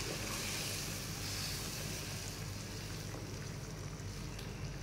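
Red lentils in thin, watery masala simmering and sizzling in a non-stick pan, just after hot water was added, while being stirred with a wooden spatula. A steady low hum runs underneath.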